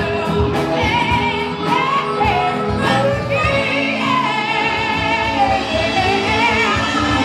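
Live band music: a lead singer sings over saxophones, electric guitar and drums, holding one long wavering note a little after three seconds in.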